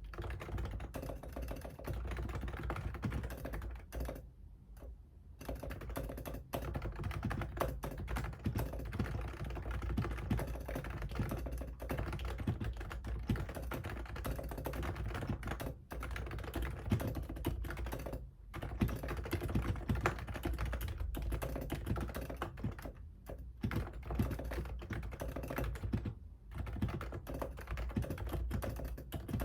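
Fast typing on a computer keyboard: rapid runs of keystrokes broken by a few brief pauses.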